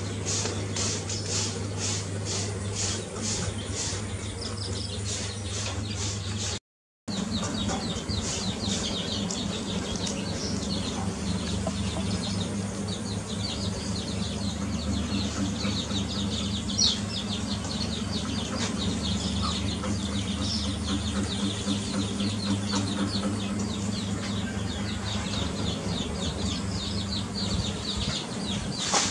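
A brood of young chicks peeping continually around a foraging hen, many short high chirps overlapping. For the first six seconds a high, regular pulsing about twice a second runs behind them. The sound drops out completely for a moment about seven seconds in.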